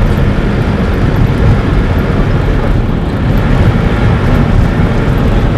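Loud, steady noise, heaviest in the low range with a hiss above it, with no distinct events.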